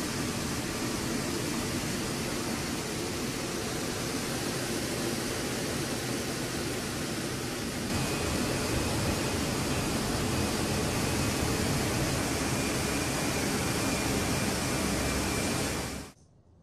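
Steady noise of jet engines and airflow heard inside the flight deck of a C-17 Globemaster III. About halfway through it turns louder, with a faint steady high tone on top, and it cuts off suddenly near the end.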